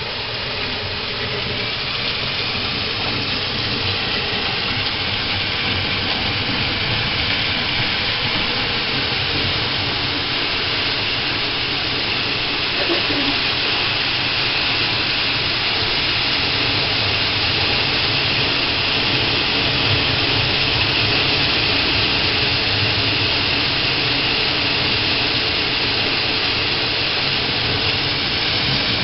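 Heavy rain pouring down steadily, water running off the roof edge in streams, with a faint steady hum underneath.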